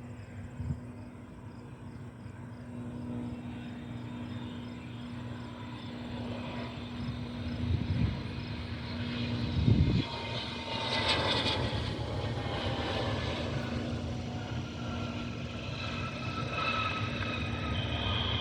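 Hawker 800 XP business jet passing on approach, its twin turbofan engines whining. The whine falls in pitch about ten seconds in as the jet goes by, and the sound grows louder toward the end. Two dull thumps come at about eight and ten seconds in.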